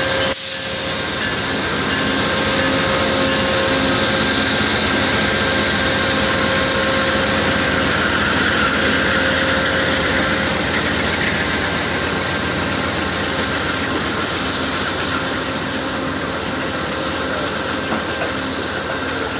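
Amtrak passenger train rolling past, its steel wheels clattering over the rails as the coaches go by, behind two GE Genesis P42DC diesel locomotives drawing away. The sound stays steady and eases off slightly near the end.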